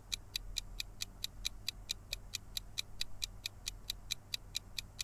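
Quiz countdown timer sound effect: a clock ticking steadily at about four or five ticks a second.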